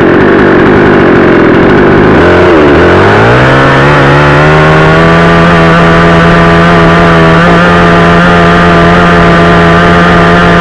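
A 62cc two-stroke chainsaw running at high throttle, very loud. About two seconds in the engine note dips, then climbs and holds a steady high pitch.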